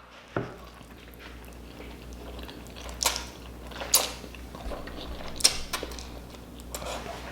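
Close-miked mouth sounds of a person eating spicy noodles without hands: soft chewing, with a few short, sharp smacks about three, four and five and a half seconds in.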